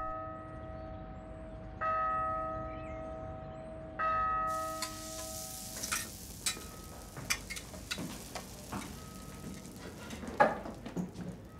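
A bell rings three times, about two seconds apart, each ring fading away. Then a steady hiss starts suddenly, with light clinks and clatters of dishes and utensils in a kitchen.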